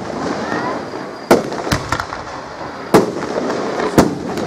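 Aerial fireworks exploding in the sky. There are four sharp bangs: one about a second in, a smaller one just after it, another near the middle and a last one near the end. A steady crackling, noisy bed runs between them.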